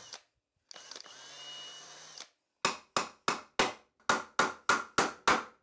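A cordless drill runs for about a second and a half, boring a pilot hole in a pine board. A claw hammer then drives a finishing nail into the pine with about ten quick blows, roughly three a second.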